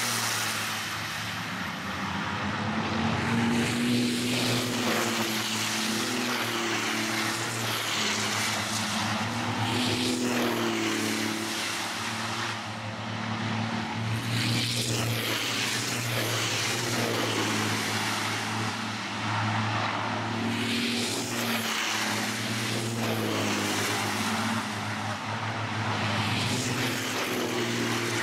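Diesel racing trucks' engines passing by one after another, their pitch rising and falling with gear changes and throttle, each truck swelling as it goes past.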